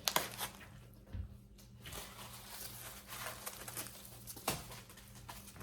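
Packaging being handled: soft rustling and crinkling, with a sharper click near the start and another near the end.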